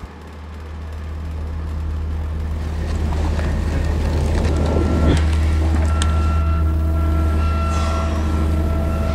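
A low, steady droning hum that swells in over the first couple of seconds. About halfway through, a few faint steady higher tones join it.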